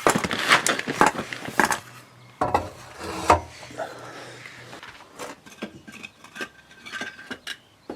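Steel exhaust pipe sections being slotted together and tapped into place on the car's exhaust: metal-on-metal clanks and scraping, loudest in the first three seconds or so, then lighter clicks and knocks.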